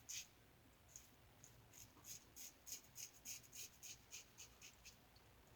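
Firm Blade safety razor with half a Wizamet blade scraping through lathered stubble on the neck in short, faint strokes, coming quickest, about three a second, in a run through the middle.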